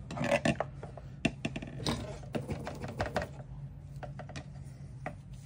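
Hand tools and wires being handled on a wooden workbench: the wire strippers are picked up and set down. It makes a quick run of small clicks and taps over the first three seconds, then fewer.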